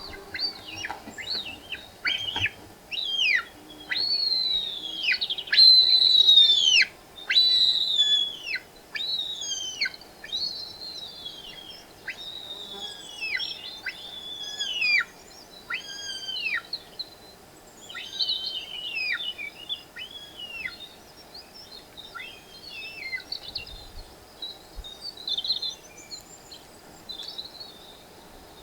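A bird calling: a series of high whistled notes, each sliding downward in pitch, about one to two a second. They are loudest around five to seven seconds in and thin out into scattered chirps toward the end.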